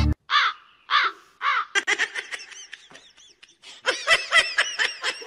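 Ginger cat chattering at a wall: two separate high-pitched calls, then from about two seconds in a rapid run of short, clipped calls that grows thickest near the end.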